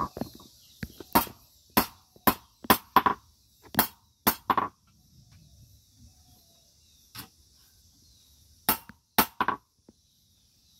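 Blacksmith's hand hammer striking a sickle blade on a small iron anvil: about a dozen sharp, ringing metal-on-metal blows in uneven clusters, with a pause of a few seconds in the middle. The blade is being hammered into shape.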